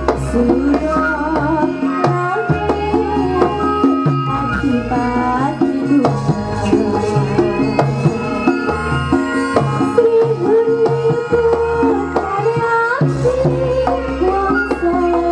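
Javanese gamelan music with kendang hand-drum strokes and a sinden (female singer) singing over it through the PA, played at full volume.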